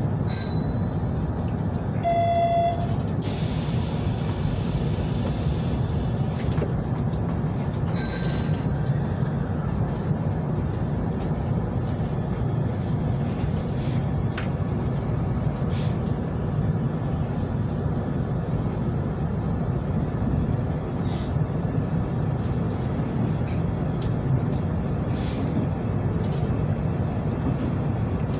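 Hanshin 9300 series electric train running along the line, a steady low rumble with occasional sharp clicks. A brief high tone sounds about two seconds in.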